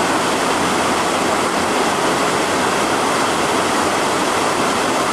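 Steady rush of water flowing along a narrow stone-walled canal, an even noise without breaks.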